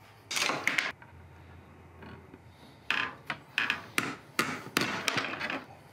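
Hand cable cutters shearing stainless steel railing cable: a short crunch about half a second in, then a run of sharp clicking snaps from about three seconds in until near the end.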